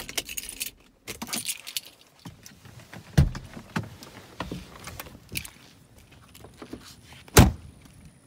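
Clicks, knocks and rattles of someone climbing out of a Mercedes-Benz W210 E320, with a thump about three seconds in and the car's door shutting with a heavy thud near the end.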